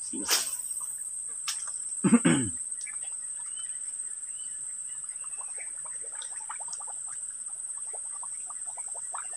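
Steady high-pitched drone of crickets, with frogs calling in quick irregular croaks from about four seconds in. A spinning rod swishes once through a cast near the start, and a short louder sound comes about two seconds in.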